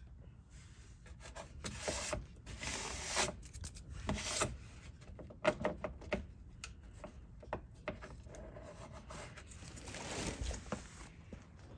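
Hand rubbing and brushing against a surface, in uneven bursts with scattered light clicks and scuffs.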